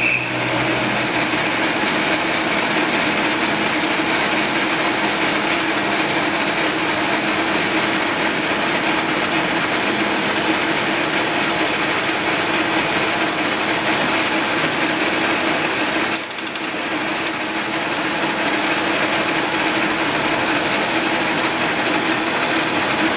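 Metal lathe running and turning a motorcycle gearbox shaft, a steady machine hum with a hiss of cutting. The sound dips briefly about two-thirds of the way through.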